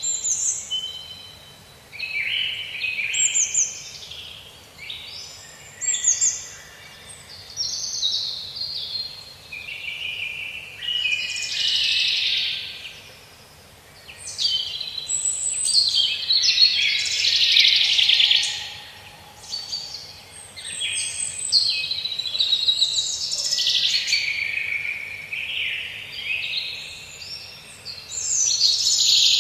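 Songbirds singing: a dense run of quick, high chirping phrases, one after another with short pauses.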